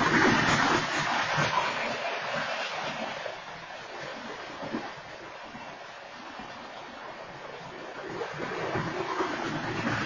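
BNSF freight train cars rolling past a grade crossing: steady rushing wheel-on-rail noise, loudest at the start, easing off in the middle and building again near the end.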